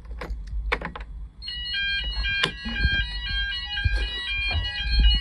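Several fire alarm sounders start up about a second and a half in, after a few clicks at the manual call point. They sound their tones at different pitches together, out of step with one another.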